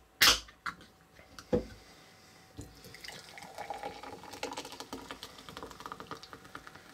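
A can of Mitsuya Cider lemon soda cracked open with a sharp pop, a knock a little over a second later, then the carbonated soda poured out, fizzing and crackling for about four seconds.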